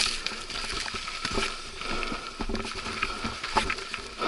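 Scattered scuffs, scrapes and rustles of boots and a dirt bike being dragged over rocks and brush, with no engine running.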